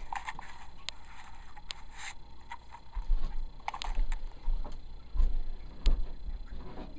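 Handling noise: scattered clicks and knocks from a plastic DVD case being picked up and handled, with low bumps as the camera is moved about.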